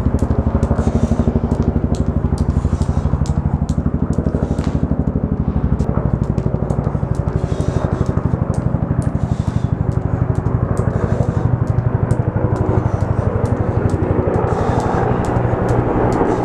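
Jump rope striking the pavement in a steady rhythm, about two to three light slaps a second, over a louder, steady low drone with a fast throb.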